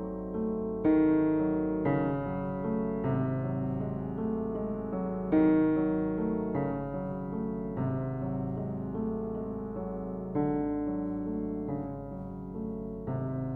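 Slow, gentle piano music: sustained chords, with louder chords struck about one second in, near the middle and a little after ten seconds.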